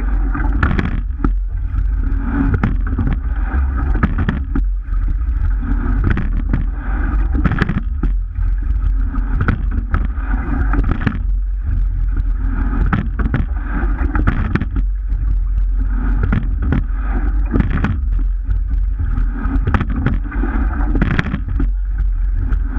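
Wind buffeting the microphone of a camera riding on a moving rowing shell, over water rushing along the hull, with frequent short knocks and clicks from the boat's oars and fittings.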